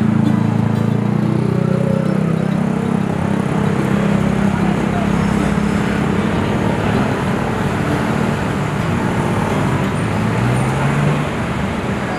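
Road traffic noise with a nearby engine running steadily. About ten seconds in, a short rise in engine pitch is heard.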